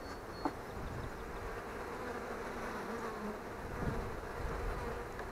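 Honeybees buzzing steadily over an open hive, with one short click about half a second in.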